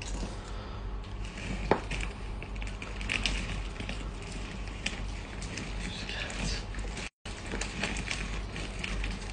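Crinkling and rustling of a plastic-sleeved strip of banknotes being pulled up out of a money-pull cake, with scattered small crackles over a low steady hum. The sound cuts out completely for a moment about seven seconds in.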